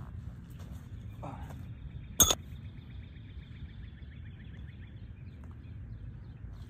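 A single sharp click about two seconds in, over a steady low outdoor rumble and a faint high bird trill.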